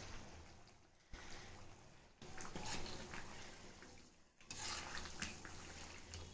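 Wet herbs and leaves bubbling and frothing in hot oil in an iron kadai, with a metal ladle stirring and scraping through them. The sound drops away and comes back abruptly three times.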